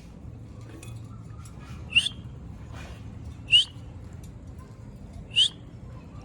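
A green parrot giving three short, sharp calls, each with a quick upturn in pitch, spaced roughly one and a half to two seconds apart.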